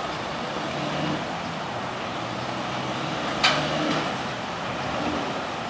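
Road traffic at a railroad level crossing: the engines of a car-carrier semi truck and cars running as they move off across the tracks, with one sharp knock about three and a half seconds in.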